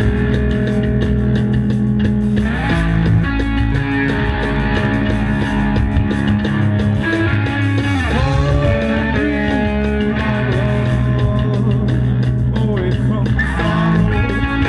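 A rock band playing live, with electric bass and electric guitars over drums.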